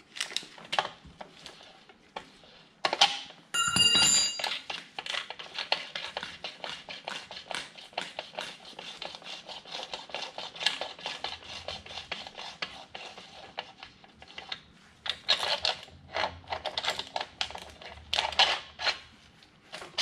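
Hand ratchet clicking in quick runs as it unscrews a threaded bushing press tool from a just-installed poly trailing arm bushing. A metallic clank with a short ring about four seconds in.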